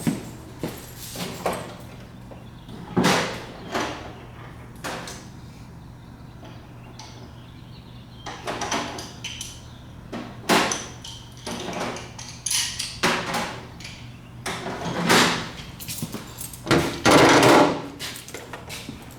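Handling and rummaging noises: drawers sliding open and shut and tools knocking and clattering, with a longer sliding sound near the end, over a faint steady low hum.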